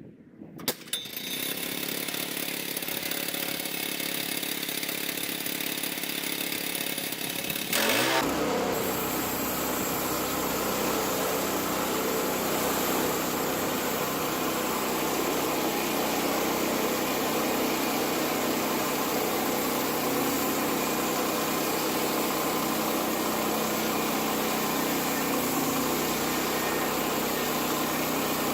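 Woodland Mills HM122 bandsaw mill's gas engine started and running at low speed, then revved up to full speed about eight seconds in, with a brief rising pitch, to drive the band blade; it then runs steadily at full throttle.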